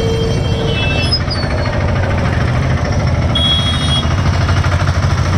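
Busy street traffic: a steady low rumble of vehicles, with a short horn-like tone near the start and a brief high tone about three and a half seconds in.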